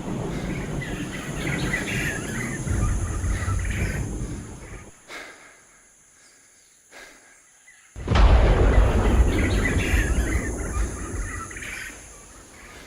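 Birds chirping over a low rumbling outdoor ambience. Both cut out for about three seconds midway, then come back suddenly and loudly.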